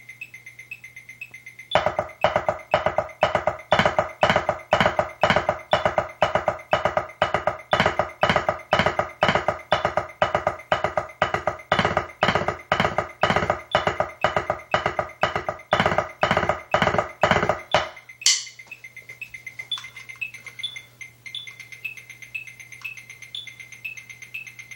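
Electronic tones: a loud pulsing pattern, about two and a half pulses a second, that starts about two seconds in and cuts off abruptly near the three-quarter mark, over a faint high beep that repeats throughout.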